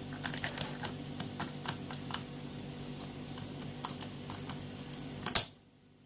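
Small irregular clicks and taps of a filed, impressioned key being worked into a cheap TSA luggage lock's wafer cylinder, with a louder click near the end. A steady low hum runs underneath.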